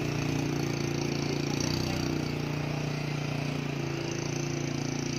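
Motor scooter engine running steadily at low speed, a constant low hum.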